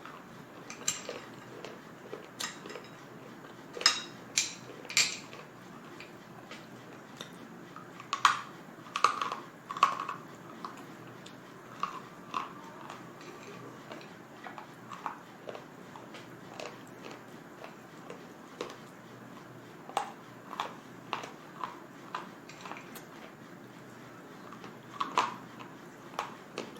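Pieces of slate being bitten and chewed close to the microphone: irregular sharp, crisp crunches and cracks, loudest in clusters about 4 and 8 seconds in and again near the end, with softer chewing crunches between.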